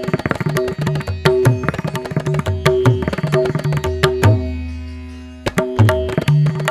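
Indian classical background music: a hand drum plays a quick rhythm of strokes over a steady drone. Near the end one low drum note rings out and fades for about a second before the rhythm starts again.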